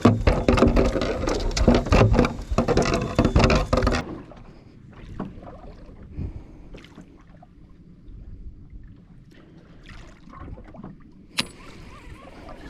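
Boat engine running with wind and water noise, which cuts off abruptly about four seconds in. A much quieter stretch of faint clicks and knocks follows, with one sharp click near the end.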